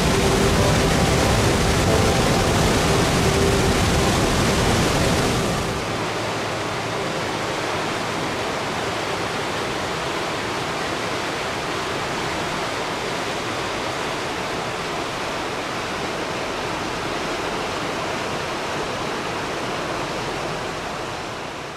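Steady rushing of a waterfall's water pouring into a canyon. It is louder for the first six seconds, then drops a step in level and runs on evenly.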